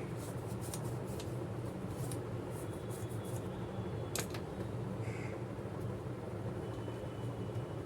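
Light clicks and taps of laptop parts being handled during RAM work, with one sharper click about four seconds in, over a steady low hum.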